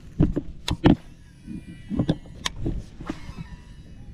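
Several sharp, irregular knocks and clicks of a fishing rod, reel and gear being handled aboard a plastic kayak.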